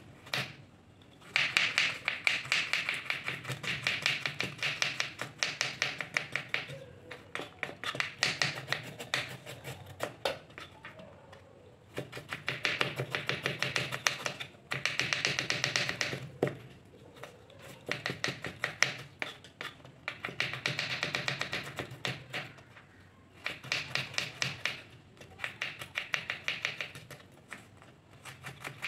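Kitchen knife rapidly chopping onion on a wooden cutting board: fast runs of tapping strokes, each run several seconds long, with short pauses between them.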